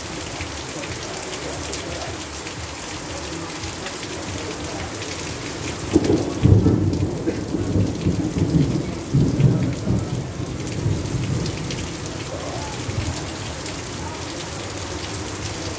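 Heavy rain falling steadily. About six seconds in, a roll of thunder breaks in suddenly and rumbles in swells for about five seconds before fading back under the rain.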